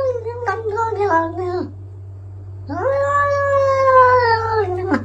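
Cat yowling in two long, drawn-out meows: the first trails off about one and a half seconds in, the second starts near the middle, holds for about two seconds and sags in pitch at the end. A steady low hum runs underneath.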